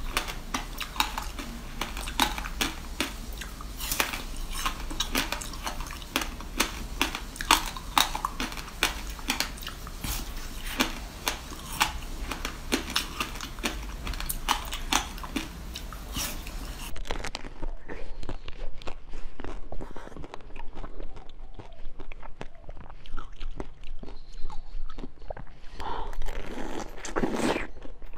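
Close-miked biting and chewing of crunchy frozen food: for about the first seventeen seconds, rapid crisp crunches as a frozen, seed-studded fruit slab is bitten and chewed. Then, after a cut, softer biting and chewing, with a heavier bite near the end.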